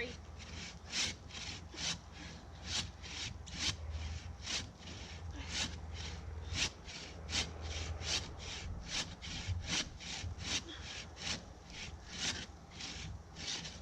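Hand bow saw cutting through wood, with steady back-and-forth rasping strokes at about two a second.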